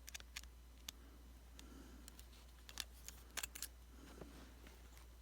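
Scattered small clicks and taps of a tiny magnetic screwdriver and loose screws against a phone's internals, a few in quick succession about three and a half seconds in, over a faint steady low hum.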